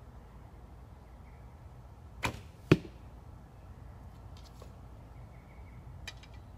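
Browning Explorer recurve bow shot once: the sharp thwack of the string on release, then about half a second later a louder smack as the arrow strikes the target.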